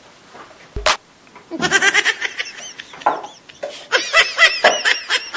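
A sharp knock about a second in, then laughter in two bursts of quick, repeated ha-ha-ha pulses, the second starting about four seconds in and running on.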